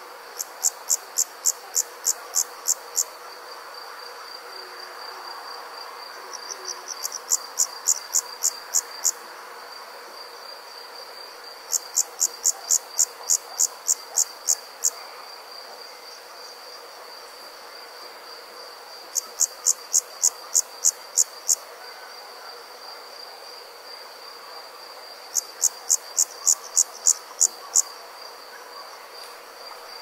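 Summer night insects calling: a steady high-pitched trill runs throughout. Over it, a louder pulsed call of sharp, evenly spaced clicks, about four a second, comes in bouts of two to three seconds, five times.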